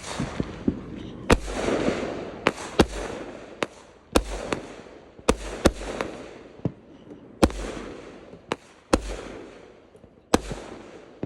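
Fireworks going off: about a dozen sharp bangs at uneven intervals, several with a deep thud and followed by a hissing trail lasting a second or so.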